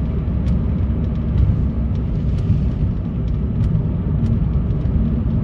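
Vehicle driving on snow-covered roads: a steady low rumble of engine and tyres, heard from inside the vehicle, with a few faint clicks.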